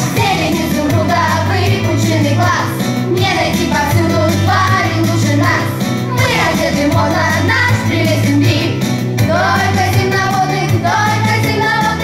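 A song: singing voices over a backing track with a steady, repeating bass line.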